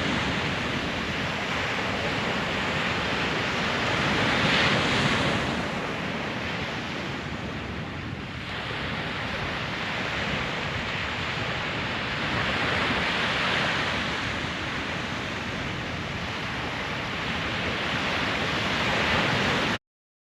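Ocean surf breaking on a beach, a steady wash that swells louder three times as waves come in, with wind rumbling on the microphone.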